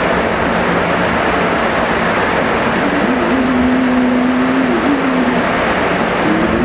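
Heavy rain falling with a steady, even hiss. A low hum runs underneath, shifting in pitch about three seconds in and again near the end.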